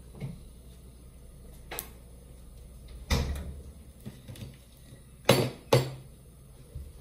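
Kitchen handling sounds: a few separate sharp knocks and clatters as containers and utensils are put down and moved. The loudest two come close together about five seconds in.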